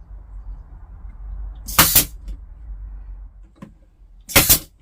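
Pin nailer firing twice, about two and a half seconds apart, pinning the joints of a wooden assembly.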